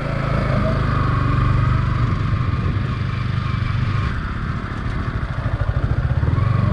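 Sport motorcycle engine running at low, steady speed while riding over a dirt track. It eases off briefly around four to five seconds in and picks up again near the end.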